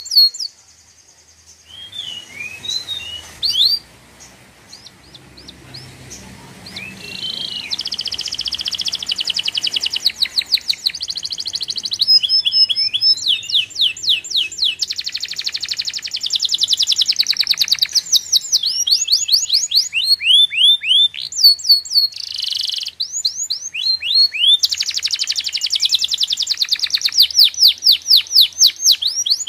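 A bird singing: after a few scattered chirps, long rapid trills of fast repeated sweeping notes, each run several seconds long, with short pauses and single chirps between them.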